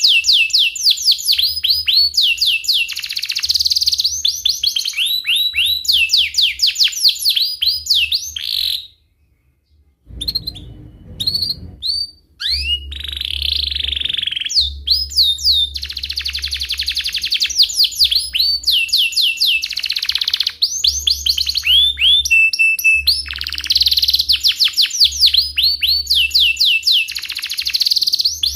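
Domestic canary singing a long, loud song of rapid repeated downward-sweeping chirps and rolling trills. The song breaks off briefly about nine seconds in, then resumes.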